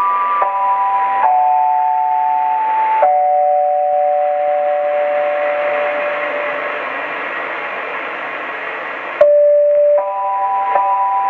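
Medium-wave AM radio reception of the Ravensburg-Horgenzell transmitter: a repeating sequence of steady electronic tones, changing note every second or two, over a hiss of static. The tones fade into the swelling hiss around the middle, then after a click about nine seconds in the sequence starts again.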